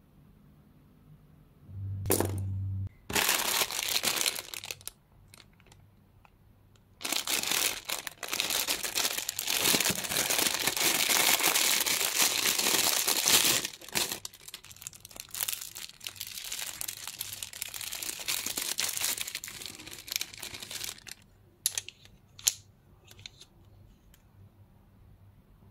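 Crinkling of a clear plastic bag as it is handled and opened around a set of makeup brushes. It comes in bursts: a short one about three seconds in, then a long loud stretch from about seven seconds that eases off, and a few light clicks near the end.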